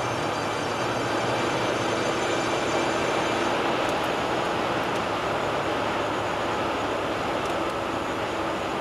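Steady road noise of a car driving on the motorway: tyre and wind noise that stays even throughout.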